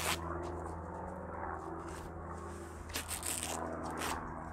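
Velcro straps being handled and fastened around the rail of a camper's roll-out awning: rubbing, rustling and short tearing sounds, with bursts at the start and again about three and four seconds in, over a steady low hum.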